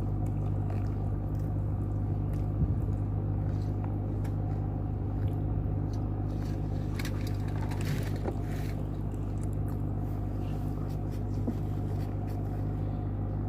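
Steady low machine hum, running unchanged, with a few faint clicks and scrapes over it.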